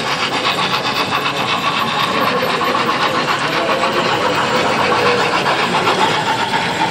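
Model freight train running past on the layout track: a rapid, even clicking of wheels over the track with a steady motor whine.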